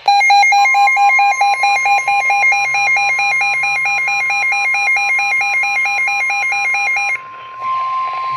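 NOAA Weather Radio's steady 1050 Hz warning alarm tone, the signal that a warning broadcast is coming, overlaid with a weather radio receiver's fast warbling alert beep, about five cycles a second, that stops about seven seconds in.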